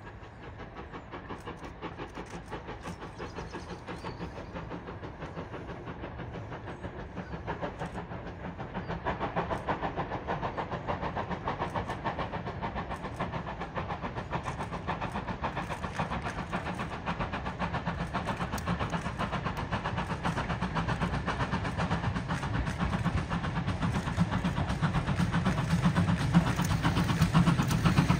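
Ex-GWR pannier tank steam locomotive 9681 working hard as it hauls a train of wagons toward the listener. Its quick, even exhaust beats grow steadily louder as it draws near.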